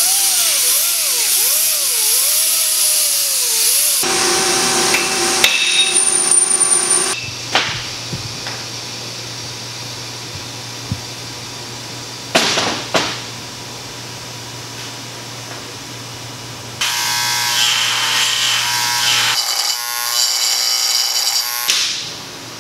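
Workshop power-tool sounds in several short stretches. The first few seconds hold a tool whine whose pitch rises and falls. After that comes a steady low hum with a couple of knocks and clatters, and near the end a stretch of loud hiss and machine noise.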